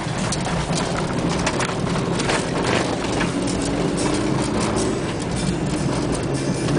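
A 4x4's engine drones steadily while the vehicle bumps along a rough, muddy dirt road, heard from inside the cabin. Frequent knocks and rattles come from the body and suspension over the ruts.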